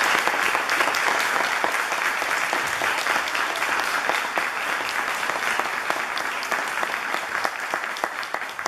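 A room full of people applauding, a dense, steady patter of many hands clapping that begins to die away at the very end.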